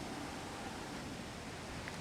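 Faint, steady background hiss of outdoor ambience, with no crossing bell or passing train sounding.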